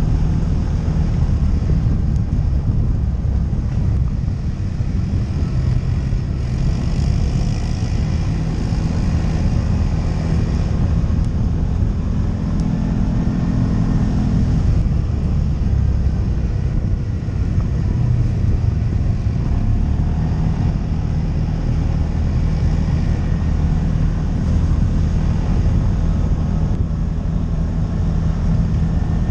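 ATV engine running steadily while riding: a constant low drone.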